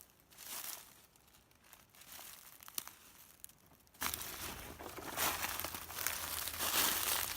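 Footsteps crunching through dry fallen leaves. For the first few seconds there are only a couple of faint crunches and a click. About four seconds in, the steps start crunching loudly, about one a second.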